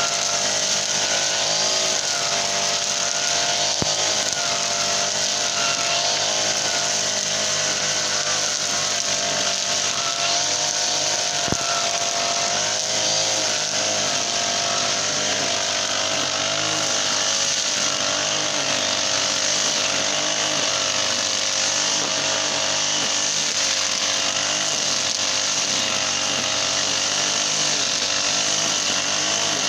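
Brush cutter's Honda GX35 four-stroke engine running steadily at working speed, its pitch wavering slightly as the load changes.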